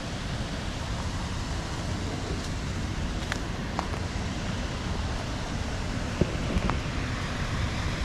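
Steady rushing noise with a rumbling low end, broken by a few faint, short ticks near the middle.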